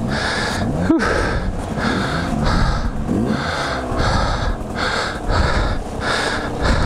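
Yamaha dirt bike engine revving up and down in short bursts while climbing a muddy rut, with the rider panting hard in rhythm over it.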